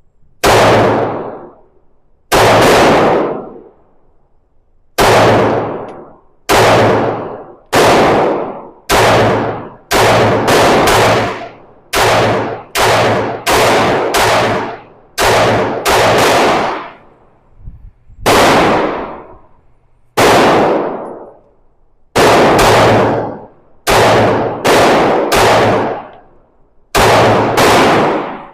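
9mm Glock 45 pistol fired shot after shot at a steady, deliberate pace, about two dozen sharp cracks mostly a second or so apart, a few in quick pairs. Each crack trails off in a short echo.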